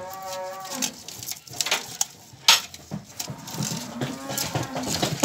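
Metal canister handles clinking and scraping against the neck of a liquid nitrogen semen storage tank as a canister is lifted to take out a straw, with a few sharp clinks, the loudest about two and a half seconds in.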